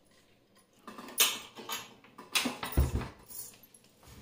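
Stainless steel pots, pans and lids clinking and rattling in a pull-out kitchen drawer, then the drawer pushed shut with a dull thump near three seconds in.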